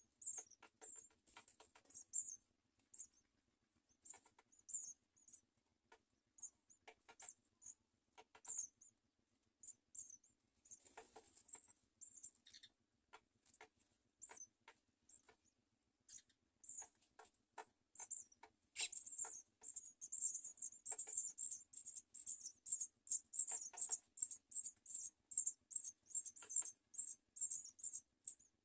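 House sparrow nestlings begging with thin, high-pitched cheeps, scattered at first and turning into a rapid, nearly continuous series about two-thirds of the way through. Light taps and scratches of movement in the nest come in among the calls.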